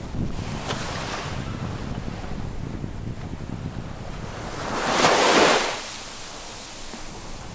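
Small sea waves washing onto the shore, with one wave swelling to a loud wash and falling away about five seconds in. Wind buffets the microphone as a low rumble.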